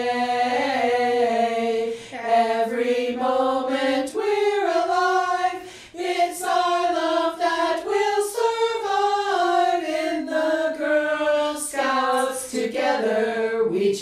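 A small group of women's voices singing together without instruments, with long held notes and short breaks for breath between phrases.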